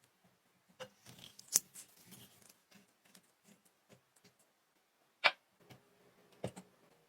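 Scattered light clicks and small scrapes, with two sharper knocks about a second and a half in and just past five seconds.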